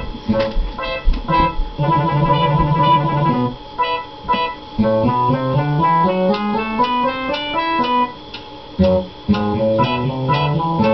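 Instrumental music of plucked-string and keyboard notes, with a line of notes climbing steadily about halfway through.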